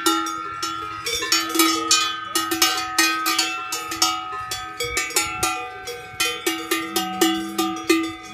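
Several cowbells on grazing cows clanging irregularly as the animals move their heads and walk. Bells of different pitches are struck over and over, each strike ringing on and overlapping the others.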